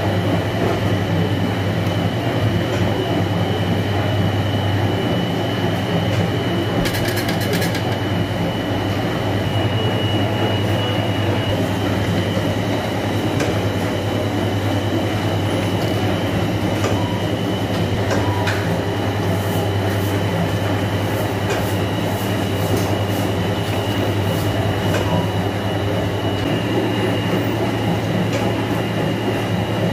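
Bakery dough machines running: a dough rounder and its conveyor belt. They give a steady low hum with a thin, constant high whine, and scattered sharp clicks that come more often in the second half.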